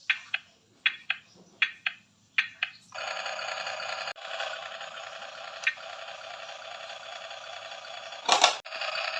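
Tinny electronic sounds from a small speaker: four pairs of short beeps about three-quarters of a second apart, then from about three seconds in a steady electronic tune, with a brief louder burst near the end.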